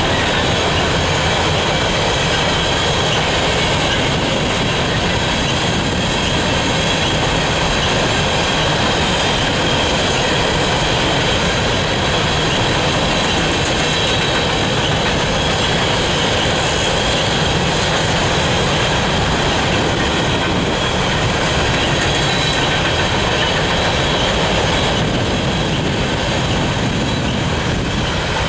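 Empty coal hopper cars of a freight train rolling past, a steady rumble and rattle of wheels on rail, with a faint high squeal of wheels against the rails.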